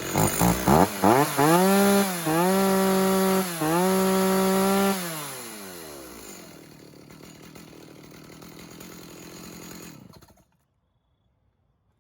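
Stihl MS290 two-stroke chainsaw blipped a few times, then held at full throttle three times for about a second each with brief dips between, while its top RPM is checked with a tachometer. It then falls back to a quieter idle, and the sound cuts off suddenly about ten seconds in.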